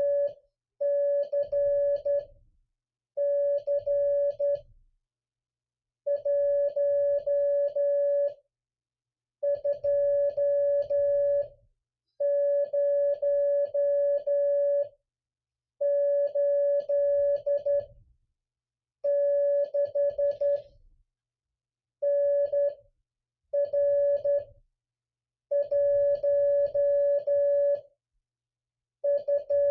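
Morse code (CW) sent by hand on a straight key as a steady, mid-pitched radio sidetone, keyed into dots and dashes. The characters come in runs of one to three seconds, with short silent gaps between words.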